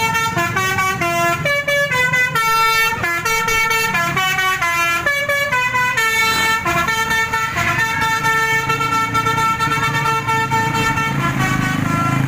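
A bus's 'telolet basuri' horn, a multi-note musical horn with a flute-like tone, playing a stepping melody of held notes. The bus engine runs underneath.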